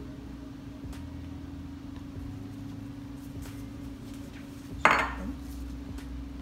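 Silicone spatula stirring soap batter in a plastic measuring jug, with a few small clicks and one sharp clatter about five seconds in, over a steady low hum.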